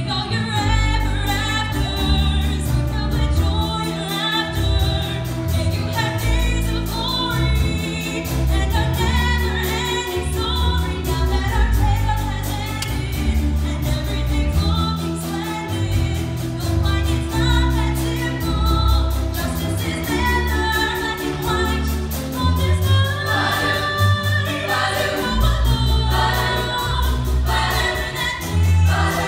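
Musical theatre number sung live on stage with pit band accompaniment, the sung voices growing fuller near the end as the whole cast joins in chorus.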